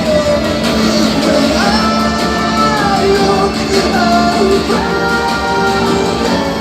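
A rock song playing, a singing voice holding long, gliding notes over guitar and bass, heard through Edifier bookshelf speakers fed from a TV by optical cable.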